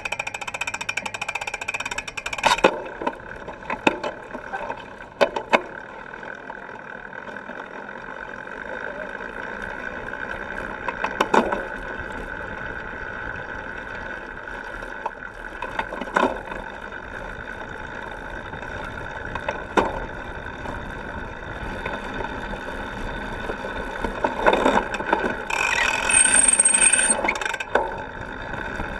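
Riding noise of a cyclocross bike picked up on its frame: a steady rattle and hum of tyres and drivetrain on sand and dirt, with sharp knocks from bumps now and then. A louder, buzzing stretch comes near the end.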